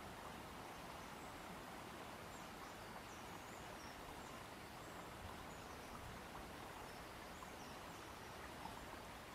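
Faint outdoor ambience: a steady hiss with scattered faint, high-pitched bird chirps.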